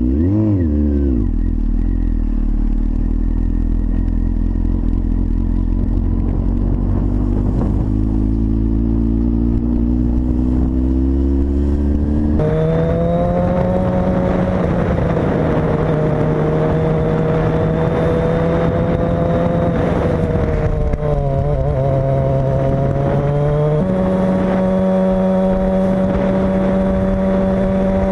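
Motorcycle engine running under way, its pitch climbing as it accelerates. About twelve seconds in, the sound changes abruptly to a steadier, louder drone that steps down and then back up near the end.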